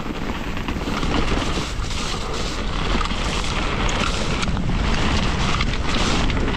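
Mountain bike rolling fast down a loose dirt and gravel trail: a steady rush of wind on the microphone and tyre rumble, with frequent small clicks and rattles from the bike over bumps.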